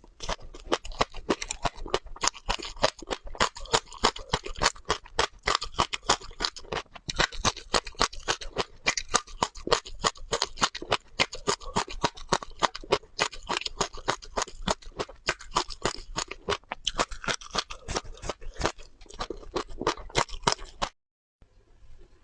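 Close-miked chewing of crunchy seeds: a fast, dense run of crisp crunches as the seeds are bitten and crushed, stopping abruptly near the end.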